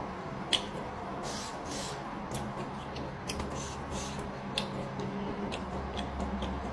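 Close-up eating sounds of someone chewing raw petai beans and raw vegetables: sharp wet mouth clicks and smacks, several a few seconds apart, the loudest about half a second in, with short crunchy, crackly chews. A low steady hum runs underneath.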